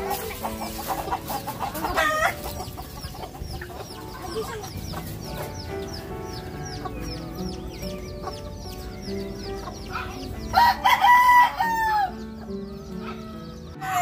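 Chickens clucking, with a rooster crowing loudly once about ten seconds in, a long call that falls off at its end.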